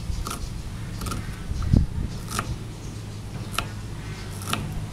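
Kitchen knife chopping diced onion on a wooden chopping board: a few sharp taps at irregular intervals, about one a second, with one heavier dull thump a little under two seconds in, over a steady low hum.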